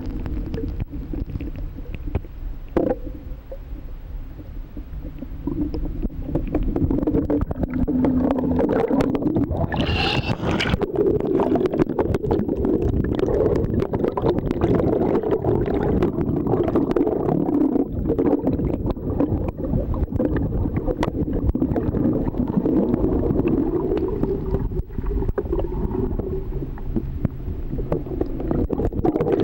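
Underwater sound picked up by a camera held below the surface: a muffled low rumble of moving water with many small clicks, growing louder about six seconds in.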